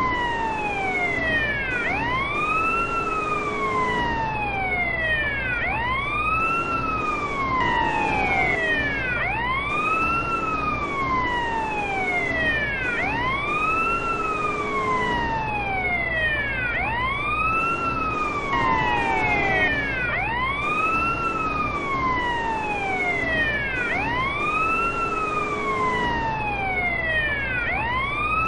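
Bosnian police car siren in a steady wail: each cycle rises quickly and then falls away, repeating a little over every two seconds, with a low hum underneath.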